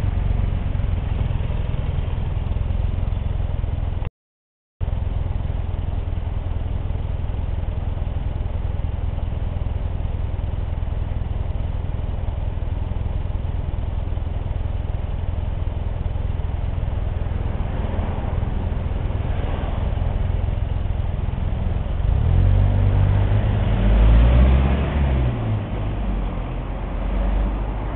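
Motorcycle engines running low in slow street traffic, the nearest a Kawasaki Estrella RS 250's air-cooled single-cylinder engine. The sound cuts out briefly about four seconds in. Near the end, engines rev up and down in pitch, the loudest part.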